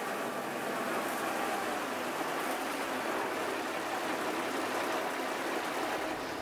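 Small river ferry under way: its engine runs steadily under a constant rush of water noise.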